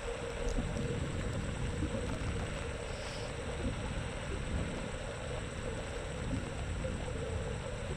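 Xiaomi M365 electric scooter riding along: a steady hum near a single pitch over an uneven low rumble.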